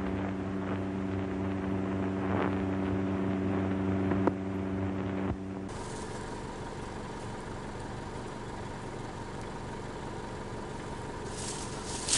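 A car engine running steadily as the car approaches, a constant hum. About halfway through it becomes a fainter, noisier engine sound, and crackling noises start near the end.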